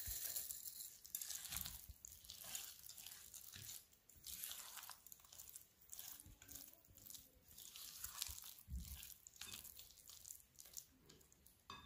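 Spatula working chocolate chips into a ricotta filling in a glass bowl: faint, irregular scraping and squishing strokes.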